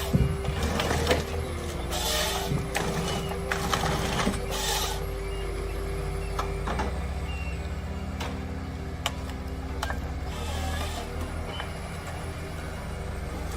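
Heavy machinery running: a steady low engine drone with a held tone, broken by several short bursts of rough noise and a few sharp clicks.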